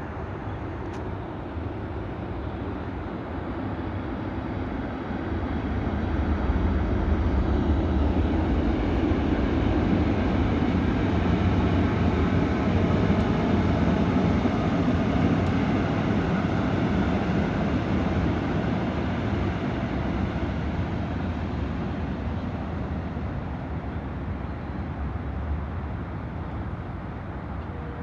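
A train passing by: a rumble builds over the first several seconds, stays loudest through the middle, then slowly fades away.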